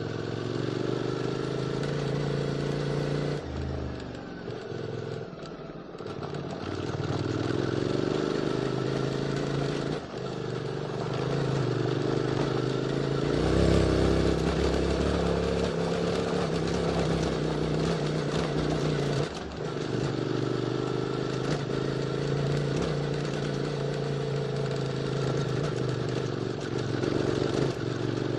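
QJ Motors SVT650X parallel-twin engine running through an Arrow Racetech slip-on exhaust while riding on a dirt track, the throttle rolling off and on. It eases off a few seconds in, pulls loudest about halfway through, and dips briefly twice, as at gear changes.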